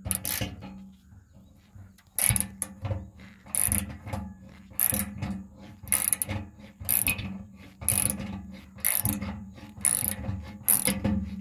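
A socket ratchet loosening a 15 mm skid-plate bolt. From about two seconds in, the pawl clicks in repeated back-and-forth strokes, about one a second.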